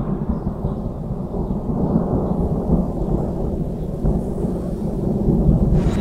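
Low, continuous rumble of rolling thunder that swells and eases unevenly, with no distinct cracks.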